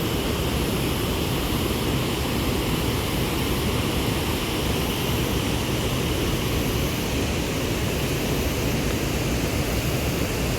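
Steady, unbroken roar of rushing water from Niagara Falls.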